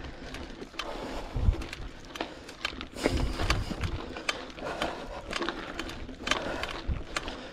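Mountain bike rolling over a loose, rocky dirt track: a run of irregular clicks and rattles from the bike and the stones under the tyres, with a few dull low thumps.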